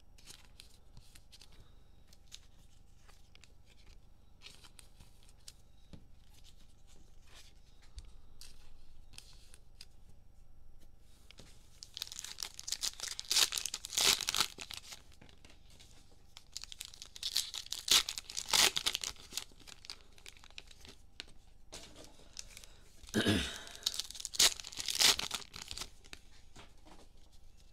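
Plastic cello-pack wrapper of Mosaic NFL trading cards being torn open and crinkled by hand, in three loud crackling bouts during the second half, after faint ticks of handling.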